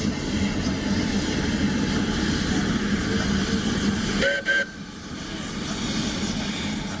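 Narrow-gauge steam locomotive standing at the platform, hissing steam steadily over a low, even hum. The hiss cuts off suddenly about four seconds in, leaving quieter, lower noise.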